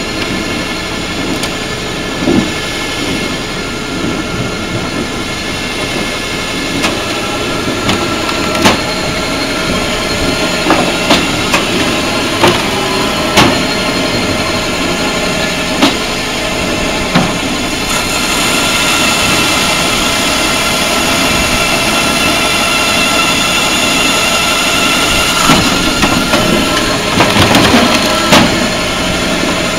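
Firewood processing machine running: a steady engine drone with a scatter of sharp knocks of wood, growing somewhat louder after about eighteen seconds.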